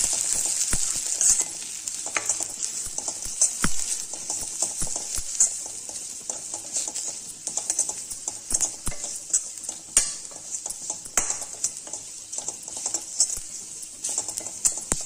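Steel ladle scraping and knocking against a stainless steel kadai as onion, tomato and spice powders are stirred in hot oil, with many sharp clicks throughout. Under them the masala sizzles on low heat, the hiss strongest in the first second or so and softer after.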